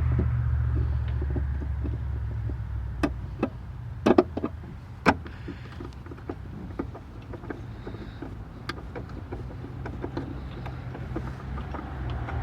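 Scattered sharp clicks and knocks of a socket wrench with an extension against metal as bolts are fitted back in, over a low steady hum that fades over the first few seconds.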